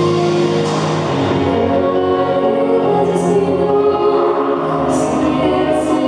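Pop song accompaniment from a backing track, with a solo girl's voice singing over it in the second half as the instrumental passage gives way to the vocal line.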